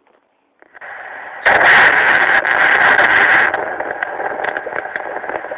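Handheld fetal doppler monitor hissing with static. The hiss comes on, turns loud for about two seconds, then settles quieter with faint scattered knocks, as it searches for a fetal heartbeat.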